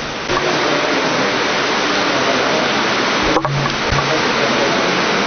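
Loud, steady hiss of noise with no clear source, with a brief dip and a couple of low thumps about three and a half seconds in.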